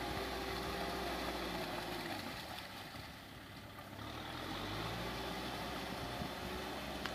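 Kubota M6040SU tractor's diesel engine labouring as the tractor churns through deep mud and water. The engine sound fades for about two seconds midway, then comes back with its pitch rising, and there is a single sharp click near the end.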